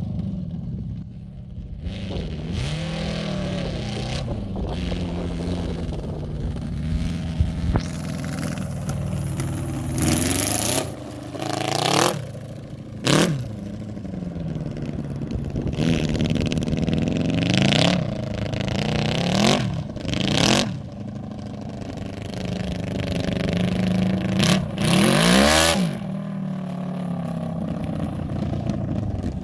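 Homemade quad bike with a Yamaha YZF1000R Thunderace inline-four engine, revving hard in repeated bursts as it is ridden across loose dirt. The pitch climbs and falls again and again, with several loud sharp peaks. The rear wheels spin in the dirt under the power.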